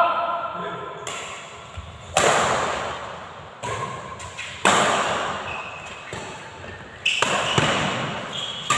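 Badminton rally: about seven sharp racket strikes on the shuttlecock, roughly one every second or so, each ringing out in the echo of a large hall.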